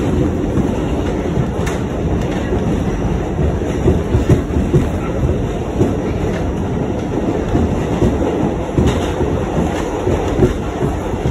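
New York City subway car running at speed, heard from inside the car: a steady, loud rumble with the wheels clicking over rail joints now and then.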